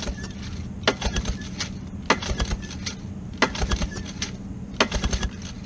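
Mariner 40 hp two-stroke outboard turned over by hand with its starter rope, spark plugs out. There are four pulls, roughly every second and a half, each a short rattle of clicks and thumps as the engine spins.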